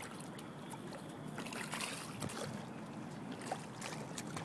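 Faint steady outdoor background noise, with scattered soft clicks from about a second and a half in.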